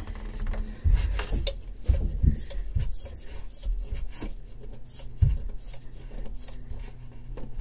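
A Yamaha oil filter being screwed on and snugged strong hand tight: fingers and palm rubbing and scuffing on the metal canister as it turns, with a few dull knocks.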